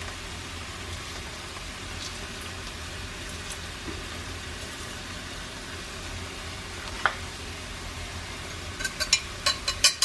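Diced onions sizzling gently in butter and olive oil in a pot, a steady frying hiss. A sharp metal click about seven seconds in, then a quick run of light metal clicks near the end as a knife scrapes pressed garlic off a garlic press.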